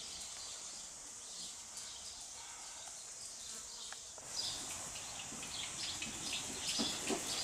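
Insects buzzing in a steady high drone. From about four seconds in the background gets a little louder, with scattered short soft taps.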